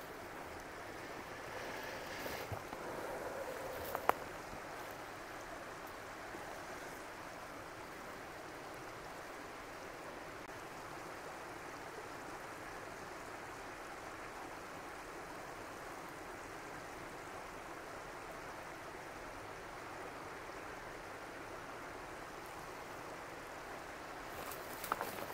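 Steady rush of running water, with a single sharp click about four seconds in and a few light knocks near the end.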